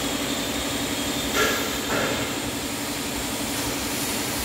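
Steady, pulsing hum of workshop machinery running, with two short knocks about a second and a half and two seconds in.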